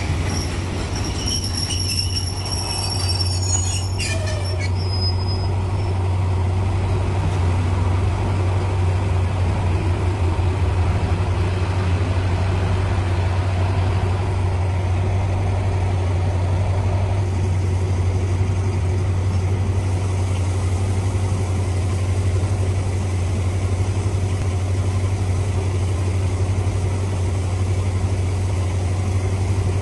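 Passenger train moving out along a station platform, its wheels squealing thinly on the rails for the first few seconds, over a steady low rumble that lasts throughout.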